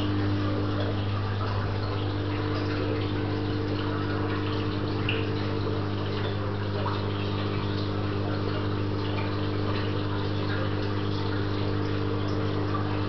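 Aquarium pumps and filters humming steadily, with a constant wash of circulating water.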